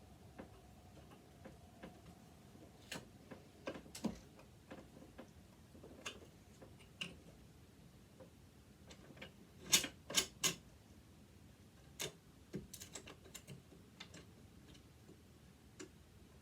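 Irregular small clicks and knocks of tools and metal parts as a sewing machine is worked apart, with a quick run of three sharper clicks a little past the middle.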